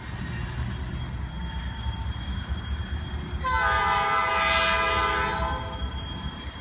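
Freight train rumbling past with its tank cars rolling, and a diesel locomotive's air horn sounding one long blast of about two seconds a little past halfway.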